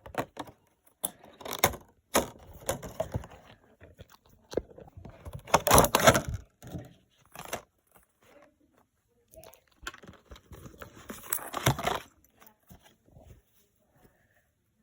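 Packaging being handled and torn open: irregular crinkling and tearing in bursts, loudest about six seconds in and again near eleven seconds.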